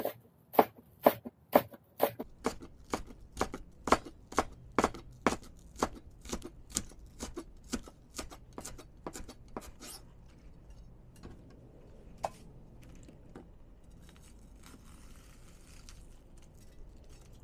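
Kitchen knife slicing scallions into fine shreds on a plastic cutting board: sharp, even strokes about twice a second. The strokes stop about ten seconds in, leaving only faint scattered taps.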